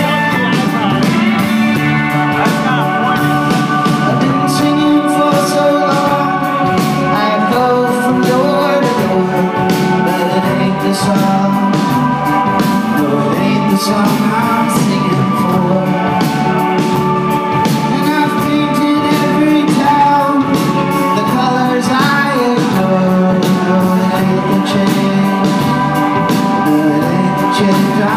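Rock band playing live: a sung vocal over full band accompaniment with a steady drum beat.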